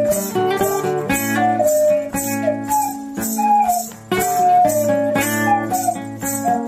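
Ethno-folk instrumental music: a plucked string instrument plays a melody with sliding, bending notes over a steady drone, with a light percussion beat of about two or three strokes a second.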